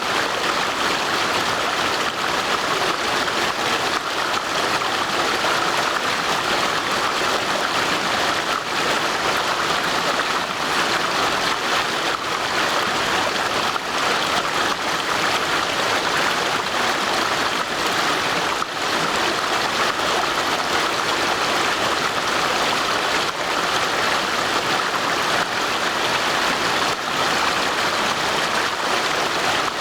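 Brook water rushing steadily, an even unbroken rush.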